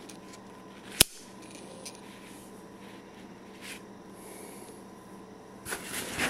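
A sharp plastic click about a second in from the Wotancraft Pilot sling bag's strap buckle being handled, a few faint ticks after it, and a brief rustle of nylon strap webbing near the end, over a faint steady hum.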